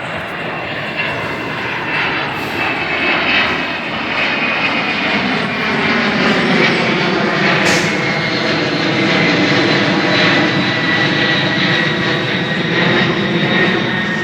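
Boeing 767's jet engines at takeoff power: a loud, steady rush with a high fan whine that grows louder over the first several seconds, then holds.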